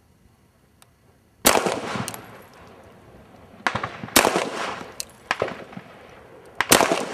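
Shots from a Beretta 92FS 9mm pistol: a sharp report with a ringing tail about a second and a half in, another about four seconds in, and a third near the end, with fainter sharp cracks in between.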